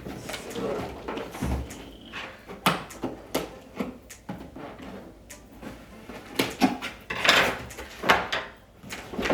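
Cardboard vacuum box being opened and unpacked by hand: irregular knocks and clicks of cardboard flaps and packaging, with a couple of longer scraping, rustling slides near the end.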